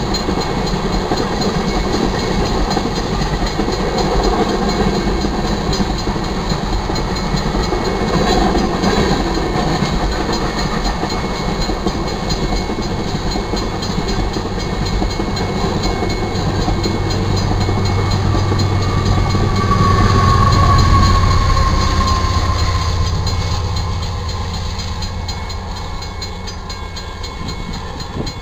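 A freight train's tank cars roll past with wheels clacking on the rail joints, over a railroad crossing bell ringing steadily. Past the middle, the low hum of the train's rear distributed-power locomotive, a GE AC44CW diesel-electric, swells to its loudest with a brief whine falling in pitch. The hum then fades as the end of the train moves away.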